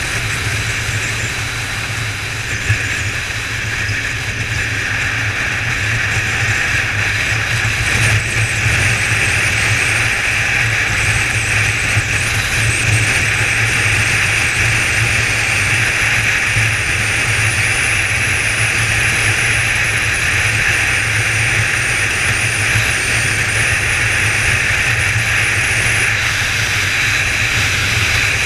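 Kawasaki ZZR1400's inline-four engine running steadily while cruising at road speed, mixed with steady wind rush, getting a little louder about eight seconds in. A brief knock about three seconds in.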